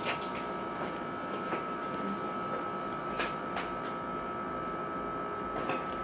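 Steady machine hum with a thin, constant high whine, broken by a few light clicks.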